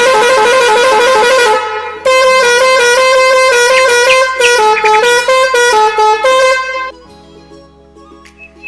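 A musical horn playing a quick tune of stepping notes, in two phrases with a short break about two seconds in, stopping about seven seconds in.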